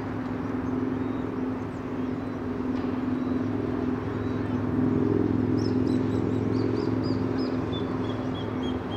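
A steady engine hum, swelling a little in the middle. Toward the end a bird gives a run of short, high chirps that step down in pitch.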